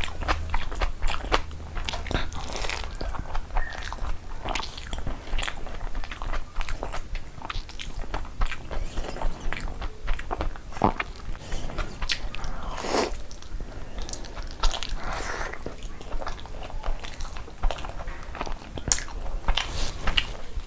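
A person eating big mouthfuls of mutton curry and pulao close to the microphone: continuous wet chewing and lip smacking with crunchy bites.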